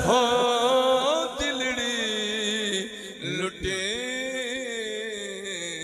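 A man singing a Saraiki naat dohra unaccompanied into a microphone, drawing out long, wavering melodic notes without clear words, and growing quieter toward the end.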